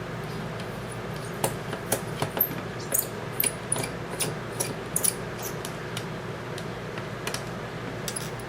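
Sharp, irregular clicks and small metallic clinks of a hex key working screws out of a polymer airsoft magazine shell, with the screws set down by hand, over a steady low hum.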